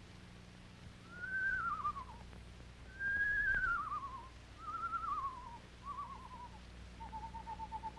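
Screech owl calling: four quavering whinnies that slide downward in pitch, then a long trill held on one pitch beginning near the end.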